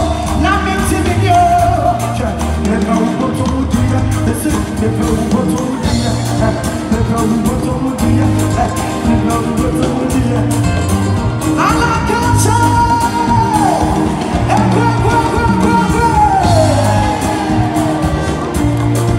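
Live gospel band music: a steady, bass-heavy beat with electric guitar and drums under a singing voice, with several falling vocal or guitar glides in the second half.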